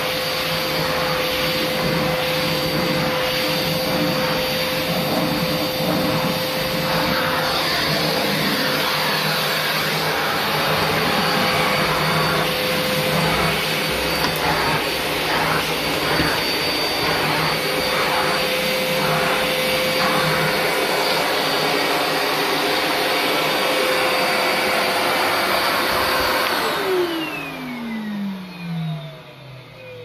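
FCM Soteco commercial tub vacuum cleaner, freshly repaired, running with a steady whine while its floor tool works the carpet, with a run of regular pulses partway through. Near the end it is switched off and the motor winds down, its whine falling steadily in pitch over about three seconds.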